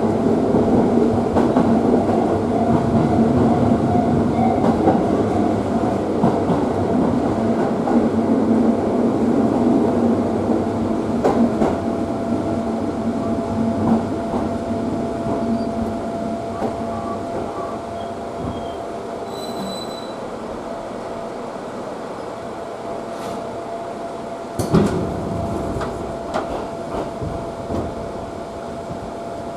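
Electric commuter train heard from inside the car, its running noise fading as it slows, under a steady whine. A single knock comes about 25 seconds in, and then the car's fan hum is left.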